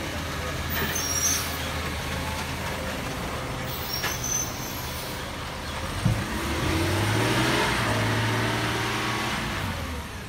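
Garbage truck engine idling on a 2018 Peterbilt 520, then revving up as the truck pulls away about six seconds in, just after a sharp knock. It grows louder while accelerating and fades near the end.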